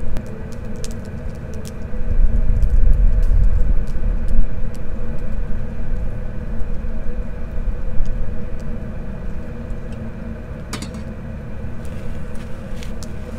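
Wind buffeting the microphone as a low, gusting rumble, loudest between about two and five seconds in, over a steady faint hum. Near the end a single sharp clack as the metal camping kettle is set down on the stove.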